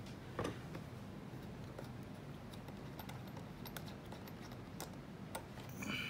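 Faint, irregular small clicks and ticks as a fibre patch cord's metal screw-on connector is fitted and tightened onto the port of a handheld OTDR.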